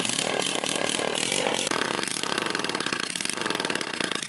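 Old small motorcycle's air-cooled single-cylinder engine running, a loud, steady, rapid stream of firing pulses, just after it started.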